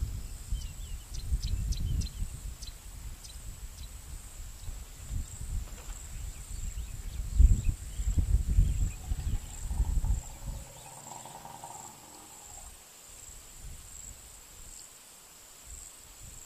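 Outdoor natural sound near a herd of elephants: a steady high insect whine runs throughout, with gusty low rumbling noise in the first ten seconds, loudest about seven seconds in. A brief pitched call with several overtones comes around eleven seconds in, and a few short high chirps come near the start.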